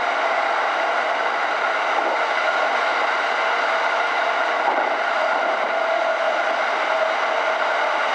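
JR E231 series electric commuter train running at steady speed, heard from the front of the train: an even rushing of wheels on rail with a faint steady whine.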